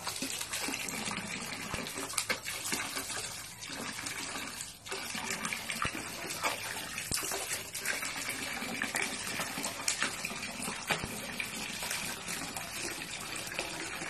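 Water running and splashing steadily during a dog's bath, with frequent small splashes and a brief lull near the middle.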